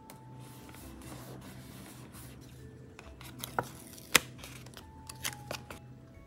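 Stickers and paper being handled on a desk during journal decorating: light rustling and a few small clicks, the sharpest about four seconds in, over soft background music.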